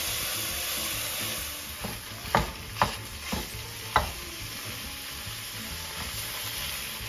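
Food sizzling as it fries in a stainless steel pot while a wooden spoon stirs it: diced vegetables, then raw ground beef. Four sharp knocks come between about two and four seconds in.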